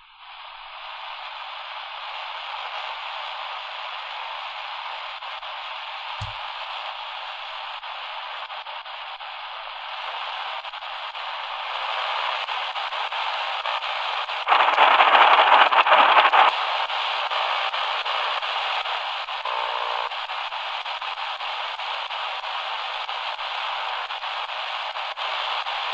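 Shortwave static and hiss from the speaker of an XHDATA D-328 pocket radio as its dial is tuned up through the 5.6 to 6.4 MHz band. A louder surge of noise comes about halfway through and lasts about two seconds. There is one soft knock of handling early on.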